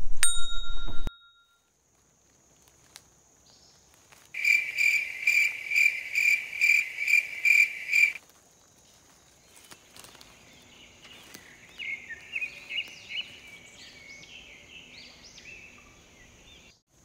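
Woodland ambience: a steady high insect buzz, with a loud run of evenly repeated high chirps, a little over two a second, lasting about four seconds, then fainter, uneven chirping calls.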